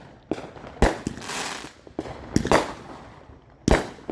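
Fireworks going off: about five sharp bangs, the loudest about a second in and near the end, with a pair close together in the middle. A crackling sizzle trails the loud bang about a second in.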